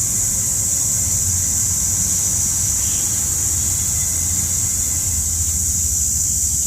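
Steady background noise: a low hum under a constant high-pitched hiss, with no distinct events.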